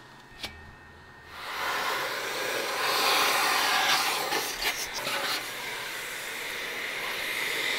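Industrial vacuum hose sucking up loose stainless-steel powder from the build cylinder, a steady rushing hiss that starts about a second and a half in, with a few faint clicks partway through.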